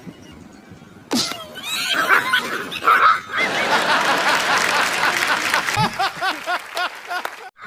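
Animal cries: a sharp falling yelp about a second in, then a loud, noisy commotion, with a run of quick rising-and-falling squeals near the end.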